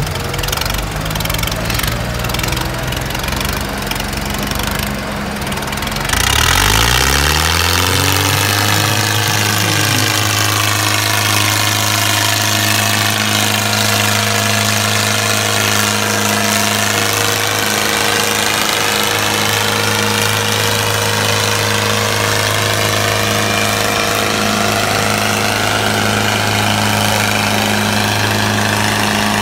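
Tractor diesel engines, a Mahindra Arjun 555 DI and a John Deere 5310, working under heavy load against each other in a tug-of-war. At first the sound is rough and uneven. About six seconds in it gets louder, climbs in pitch, and then holds a steady strained note at full throttle.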